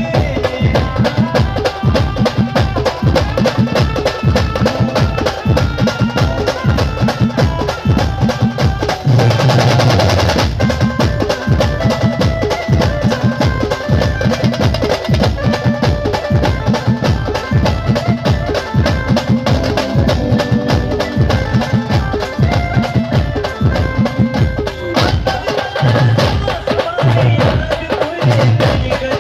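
Live band music with no singing: a fast, steady drum beat under instrumental melody lines. About nine seconds in there is a brief noisy, cymbal-like wash.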